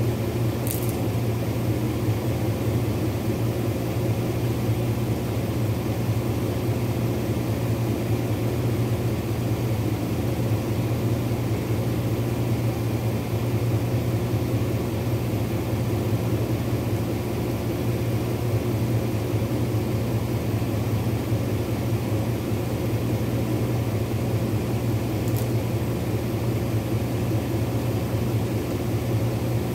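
Vehicle engine idling with a steady low hum, with a couple of faint brief clicks, one about a second in and one near the end.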